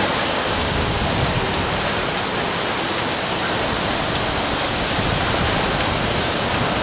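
Violent storm winds on the outskirts of a tornado, estimated at 80 to 100 mph: a loud, steady rush with gusts buffeting the microphone.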